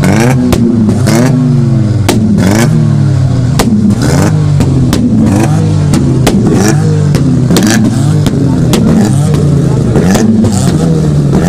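Modified car engine revved in quick repeated throttle blips, its pitch rising and falling about once a second, with sharp exhaust bangs cracking in between from an exhaust flame-thrower kit firing.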